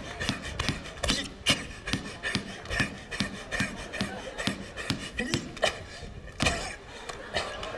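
A rapid, irregular series of sharp knocks or slaps, several a second, over a light background of crowd noise.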